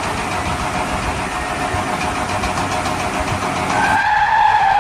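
Car driving sound effect: a steady engine-and-tyre rush, joined near the end by a held squealing tone like tyres skidding.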